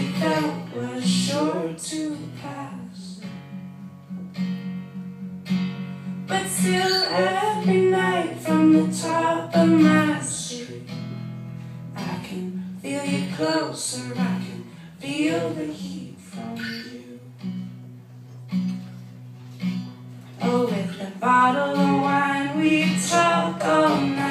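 Live acoustic song: an acoustic guitar strummed steadily, with sung phrases coming and going over it and short stretches of guitar alone between the lines.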